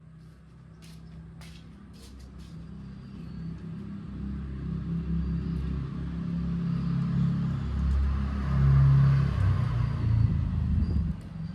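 Motorcycle engine running with a low rumble that builds from about four seconds in, is loudest around nine seconds, and drops off abruptly near the end.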